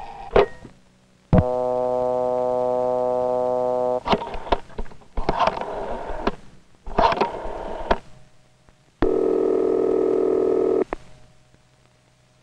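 Wall-mounted rotary telephone: a click as the receiver is lifted, a steady dial tone for about two and a half seconds, then the dial turned and clicking back three times. A second buzzing tone follows for about two seconds near the end.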